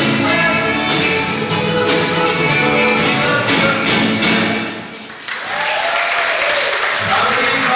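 Live band with electric guitars, drum kit and keyboard playing to the end of a song over a steady drum beat; the music stops about five seconds in and the audience applauds, with some voices over the clapping.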